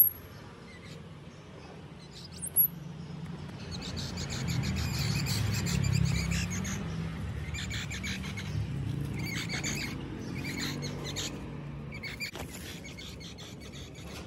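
A sharp, very high squeak about two and a half seconds in, then rapid runs of high-pitched chirps from about four seconds in, over a steady low rumble.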